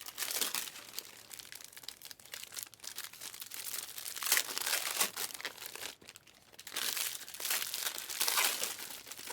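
Foil wrappers of Prizm trading card hobby packs crinkling and tearing as the packs are handled and opened, in irregular bursts with a short lull about six seconds in.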